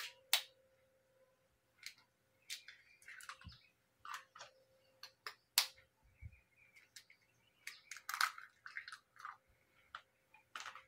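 Eggs being cracked on the rim of a plastic blender jar: scattered sharp taps and shell cracks, with a couple of dull thuds.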